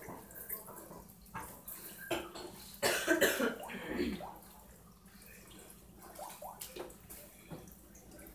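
Small dogs moving about on a hardwood floor, with scattered short clicks and scuffs, and a short cough about three seconds in.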